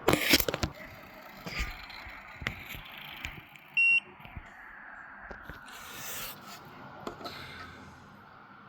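A cluster of sharp handling clicks and rattles at the start, then a single short, high electronic beep about four seconds in. Faint clicks and rustling of small tools being handled run through the rest.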